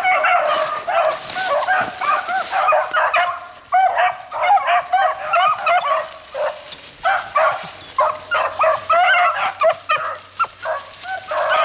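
A pack of beagles baying, many voices overlapping in a continuous chorus as they run a rabbit.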